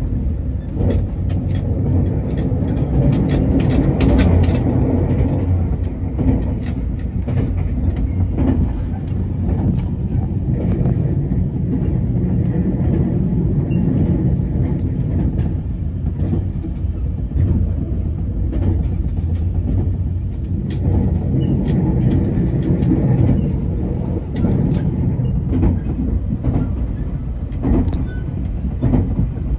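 JR West 287-series electric limited-express train running at speed, heard from inside the car: a steady low rumble with scattered light clicks.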